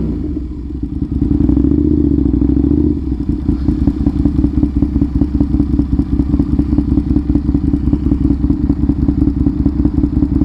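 2007 Aprilia RSV 1000R's V-twin idling through aftermarket GP-style exhaust pipes, a low steady note without high-end rasp. About three seconds in the idle settles into an even, pulsing beat.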